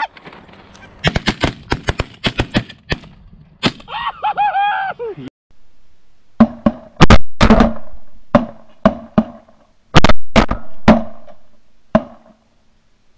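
Goose honks and short clucking calls over the first five seconds, then a rapid volley of about a dozen shotgun shots from several guns in six seconds, as hunters open fire on incoming geese.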